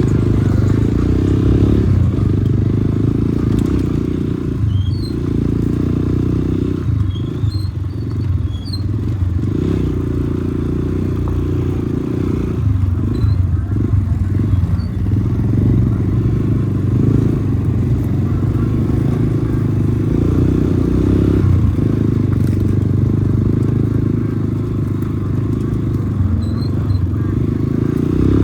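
Off-road vehicle's engine running as it drives, a loud, continuous low rumble with brief dips every few seconds.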